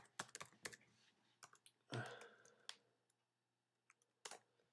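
Computer keyboard keys clicking in a quick run as a short word is typed, then a brief soft breath about two seconds in and a couple of faint clicks near the end.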